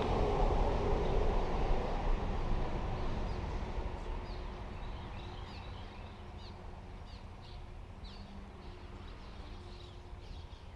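Low rumbling background noise fading away over the first half, while a small bird gives short chirps repeated many times through the middle.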